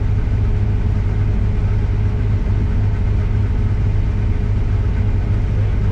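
Case combine harvester running at a steady pace, a constant low engine and machinery drone with no change in speed.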